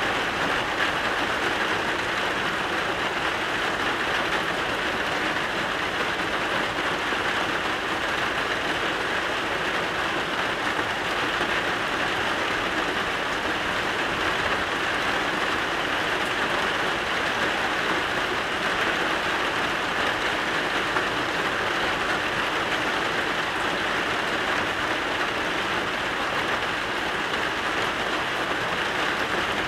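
Steady rain falling, an even hiss of drops that does not let up.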